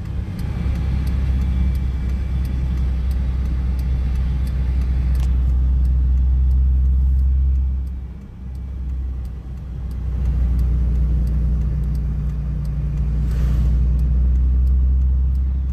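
Low, steady engine and road rumble heard from inside a moving vehicle, easing off briefly about eight seconds in, with faint regular ticking.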